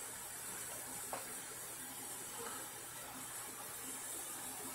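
Faint scraping of a double-edge safety razor drawn through shaving lather and stubble, over a steady background hiss.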